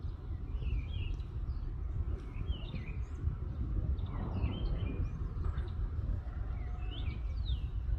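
Small birds chirping: short, rising-and-falling chirps about once a second over a steady low rumble.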